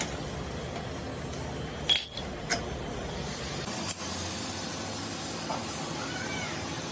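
Metal clinks from a lathe chuck being loosened with its chuck key and a steel gear taken out of the jaws: a sharp clink about two seconds in and two lighter ones after, over a steady low hum.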